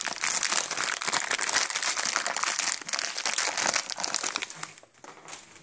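A bag of cat treats being crinkled and rustled by hand: a dense run of crackling that dies away near the end.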